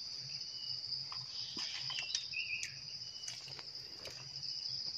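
Steady high-pitched chirring of insects, such as crickets, with a few faint clicks and a short chirp about two seconds in.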